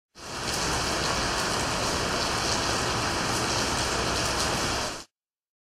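Rain sound effect: a loud, steady hiss of heavy rain with two faint steady high tones in it, cutting off suddenly about five seconds in.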